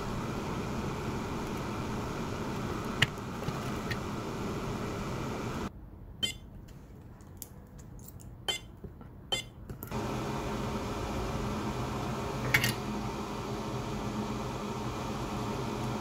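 Steady hum of a small electric fan running, with a few light clicks. For about four seconds in the middle the hum drops out, leaving a quieter stretch with several short clicks and taps.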